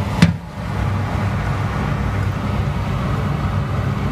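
A steady low hum throughout, with one sharp knock about a quarter second in as a ceramic ramekin is handled on the metal oven tray.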